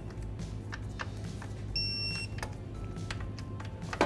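Digital click-less torque wrench giving one short, high electronic beep about two seconds in, its signal that the set torque has been reached on a transfer case tail-housing bolt. A few light clicks of the wrench on the bolt come around it.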